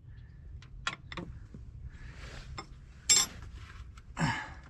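Light metal clinks and clicks from small tools or parts being handled, with one sharper knock about three seconds in and a brief scrape near the end.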